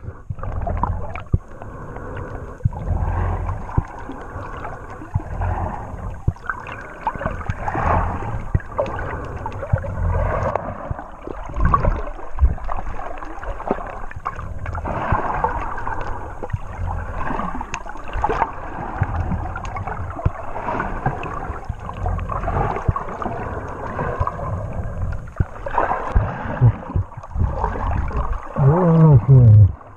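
Water sloshing and gurgling around a camera submerged in the sea as a swimmer in fins moves along, muffled, with frequent small clicks and knocks.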